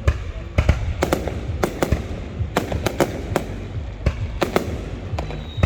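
Fireworks display: an irregular string of sharp bangs, about three a second, over a steady low rumble, with a thin falling whistle near the end.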